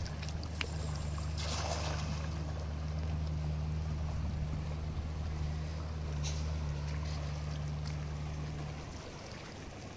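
A nylon cast net thrown over a shallow river lands on the water with a splash about a second and a half in, over the steady rush of the stream. A low steady hum runs underneath and stops about a second before the end.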